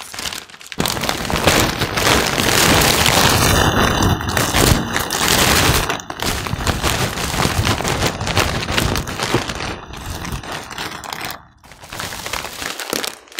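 Plastic snack packets and a large clear plastic bag crinkling and rustling loudly as they are handled, with sharp crackles throughout; it fades briefly near the end.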